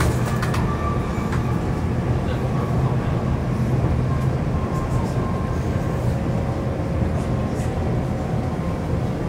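A Stockholm metro train running between stations, heard from inside the car: a steady low rumble of wheels and carriage, with a faint steady whine above it.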